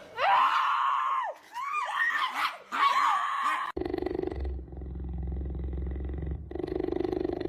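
A run of high whining calls that rise and fall, then, from about four seconds in, a cheetah purring with a deep, fast, even rattle that swells and fades with its breathing.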